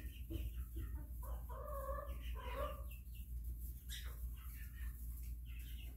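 Chickens clucking and calling: short clucks near the start, then two longer drawn-out calls about one and a half seconds in, and a few more short calls later, over a steady low hum.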